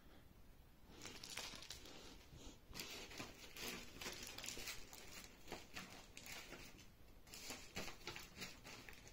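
Faint, irregular rustling and crinkling with small clicks: handling noise of a sheet of paper in a plastic sleeve and the camera being moved.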